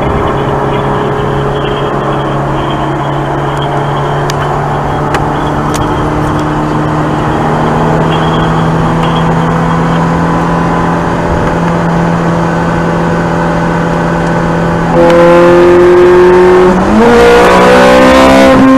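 Ferrari 430 Scuderia's 4.3-litre naturally aspirated V8 heard from inside the cabin, running at a steady drone with the revs slowly climbing. About fifteen seconds in it goes to full throttle and gets much louder, then after a brief dip the revs jump up sharply as it changes gear and keeps accelerating hard.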